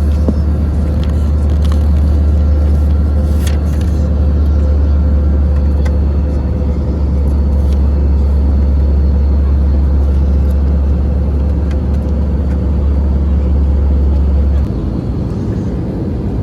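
Steady, loud low rumble inside an Airbus A321-200 airliner cabin from the engines and airflow, with a fainter steady hum above it. The deepest part of the rumble drops off suddenly near the end.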